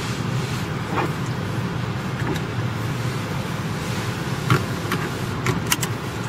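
Steady rumble of a car driving with a window open, heard from inside: tyre and wind noise, with a few short knocks or rattles about a second in and several more near the end.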